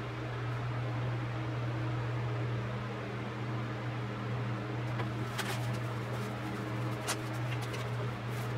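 Steady low electric hum of a tumbler cup-turner motor running, with a few light clicks about five seconds in and again about seven seconds in as a stick works in a small cup of chunky glitter.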